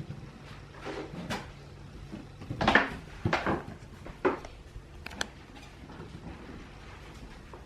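A few knocks and clatters of household objects being handled, the loudest a little under three seconds in, with single clicks after it.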